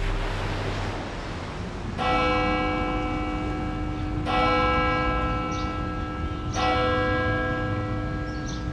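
A large church bell tolling three times, about every two and a quarter seconds. Each strike rings on with a long fading hum. A soft rushing noise fades out before the first strike.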